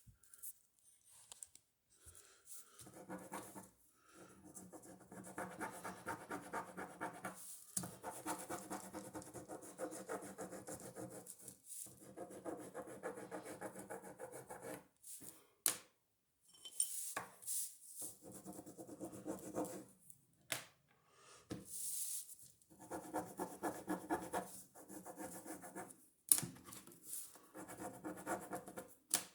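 Ballpoint pen scribbling on paper in several long bouts, a dense scratching rub, as old pens with dried ink are tried out to see whether they write after brief microwave heating. A few sharp clicks fall between the bouts.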